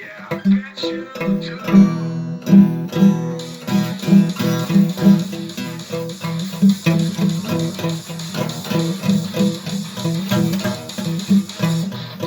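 Guitar playing a song, plucked and strummed notes in a steady rhythm.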